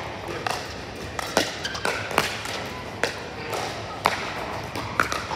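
Pickleball paddles striking a hard plastic ball in a rally: sharp pops about once a second, echoing in a large indoor hall, with faint voices and hits from other courts behind.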